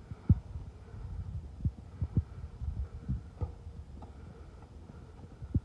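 A string of short, dull low thumps at uneven intervals, about eight in all, the strongest just after the start and another near the end, over a faint steady hum.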